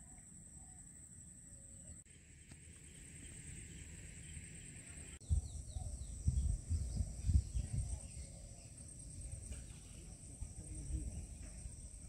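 Faint outdoor ambience: a steady high-pitched drone, with low rumbling and bumps on the microphone from about five seconds in.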